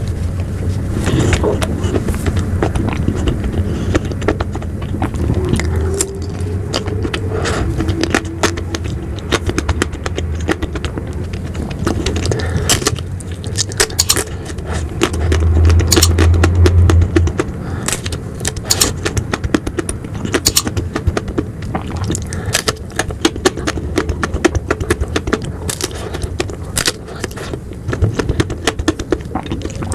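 Close-miked ice cream eating: a steady run of crackling, clicking bites and wet mouth sounds over a low rumble, louder for a couple of seconds around the middle.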